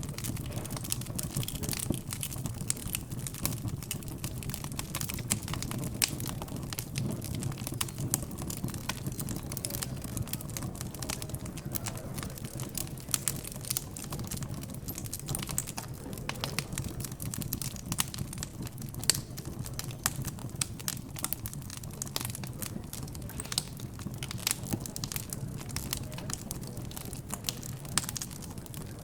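Fireplace crackling, with frequent sharp irregular pops and snaps over a low steady hum.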